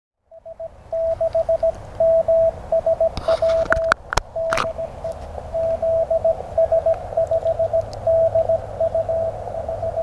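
Morse code on a ham radio transceiver: a steady mid-pitched tone keyed on and off in dots and dashes, over faint radio hiss. A few sharp clicks come between about three and four and a half seconds in.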